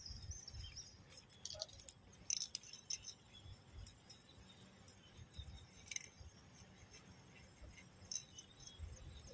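Faint scattered clicks and light clinks of a plastic bottle handline being turned and handled, the sharpest click a little over two seconds in, over a low rumble.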